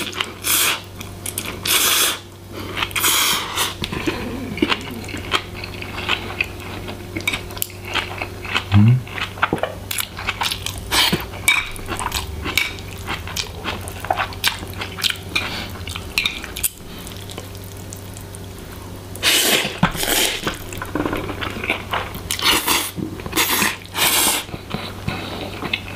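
Jjajang ramen noodles being slurped and chewed, with chopsticks clicking and scraping against the bowl as the noodles are mixed and lifted. Several loud slurps come near the start and again after about 19 s.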